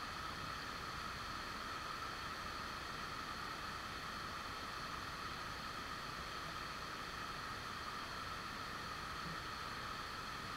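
Steady rushing of a waterfall, an even, unbroken hiss of falling water heard from a little way off.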